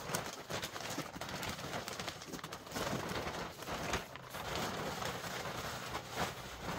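Bagged compost being poured from a plastic sack onto soil: the sack rustles and crinkles, with a few sharper crackles, while the compost slides out onto the ground.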